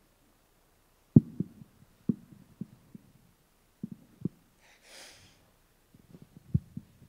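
Irregular dull thumps from a handheld microphone being handled and shifted, with one audible breath into it about five seconds in.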